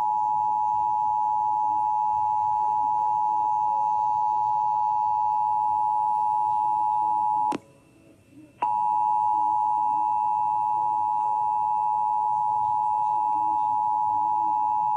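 Emergency Alert System attention signal: two steady tones sounding together, 853 and 960 Hz. About seven and a half seconds in it cuts off with a click, leaves about a second of near silence, then starts again with a click and keeps sounding.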